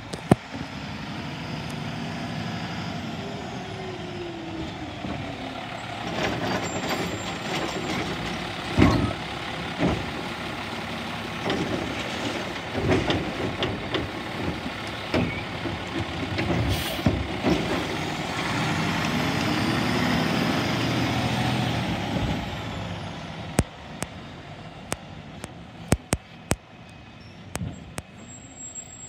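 Peterbilt garbage truck with a Labrie Automizer automated side-loading arm. The diesel engine revs as the truck pulls up, then a run of clunks and bangs follows as the arm grabs, lifts and shakes a wheeled trash cart out into the hopper. The engine revs again as the truck moves off.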